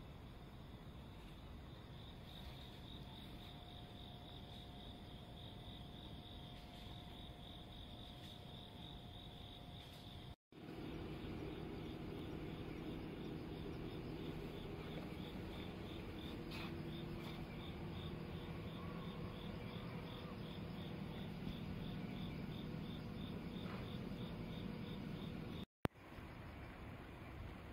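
An insect chirping in a steady, even rhythm of about three high chirps a second, over a low steady hum; the sound drops out for an instant twice.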